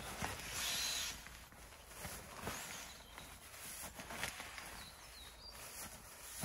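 Rustling and light knocks from an inflatable sleeping mat being handled, with a short hiss about half a second in.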